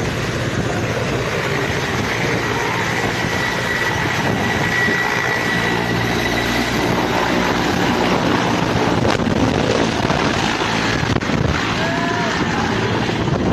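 Military helicopter running steadily: turbine and rotor noise with wind buffeting the microphone, and a thin high whine for a few seconds in the first half.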